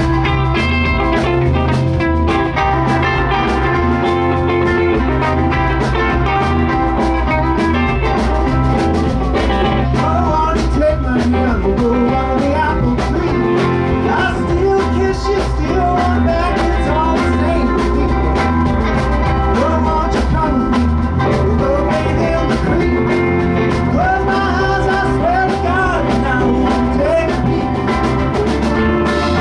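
Live rock band playing a blues-rock number with electric guitar, bass and drums on a steady beat, with guitar slides and what may be a singing voice over it.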